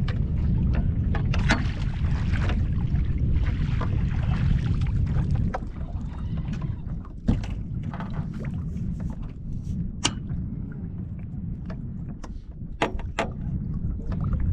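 Low rumble of wind and water around a fishing boat. It is heavy for the first five or so seconds, then eases, and a few sharp clicks and knocks of gear sound against it as a fish is played and netted.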